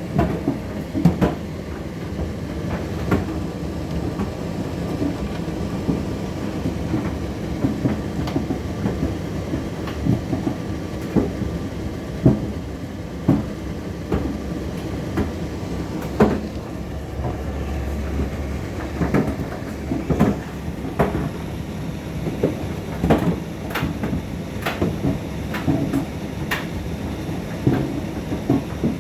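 Indesit IDC8T3B condenser tumble dryer running: a steady motor and fan noise with the drum turning, and irregular knocks and clicks as the load tumbles.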